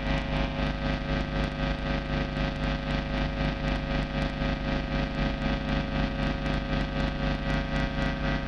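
Old-school noise music: a heavily distorted electric guitar, an Ibanez run through a Zoom G1 effects pedal, making a dense, steady wall of sustained droning tones whose loudness pulses evenly several times a second.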